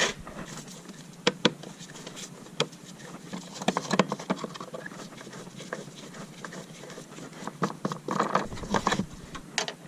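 Scattered light clicks, taps and rubbing of hand tools and metal parts being handled, with a few sharper clicks about a second in and again around four seconds.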